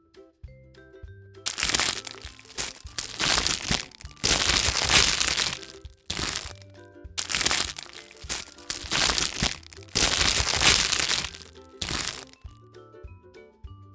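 Loud crinkling and crackling of a surprise-egg wrapper being handled and torn open, in several long spells with short breaks, over light children's background music.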